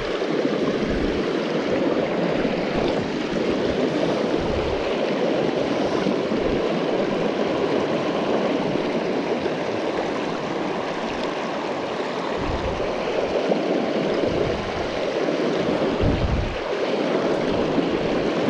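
River water rushing steadily over a cascade, an even rushing noise with occasional brief low rumbles.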